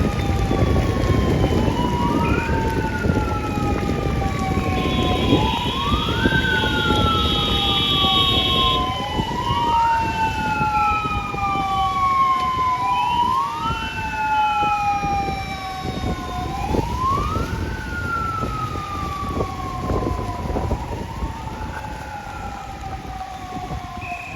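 Fire-engine siren wailing in a repeating cycle: each sweep rises quickly and falls slowly, about once every four seconds, over engine and road rumble. A second, higher stepped tone joins briefly about five to nine seconds in, and the siren grows fainter toward the end as the vehicle moves away.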